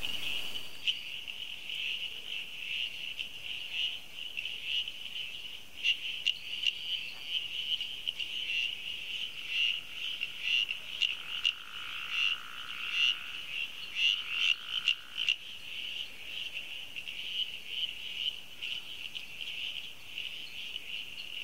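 A chorus of small animals calling: a dense, high-pitched pulsing trill, with a second, lower steady tone joining from about 10 to 15 seconds in.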